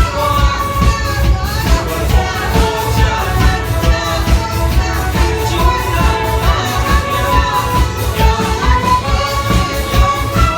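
Live orchestra playing: a melody line over a steady low beat.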